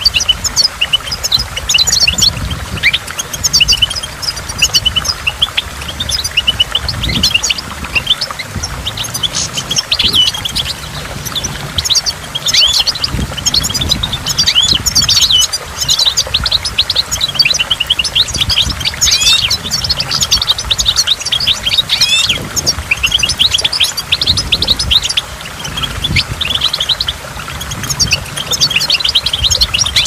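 European goldfinch singing a fast, continuous twittering song of rapid chirps and short sweeping notes, over a low rumble of rushing waterfall water.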